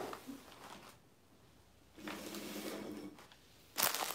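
Quiet room, then a sudden clatter and rustle near the end as things on a table are picked up and moved, with a short low sound about two seconds in.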